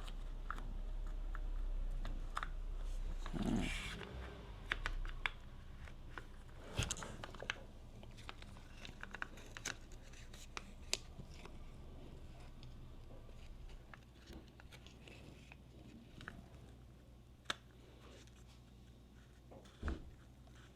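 Scattered clicks, taps and small knocks of hand tools and parts being handled while the motorcycle's left handlebar controls are fitted, over a steady low hum. A denser clatter comes about three and a half seconds in.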